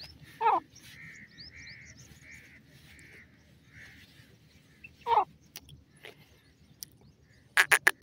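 Grey francolin (teetar) calling: two loud, short notes that slide down in pitch, about half a second in and again about five seconds in, with faint softer notes repeating between them. A rapid run of loud repeated notes starts just before the end.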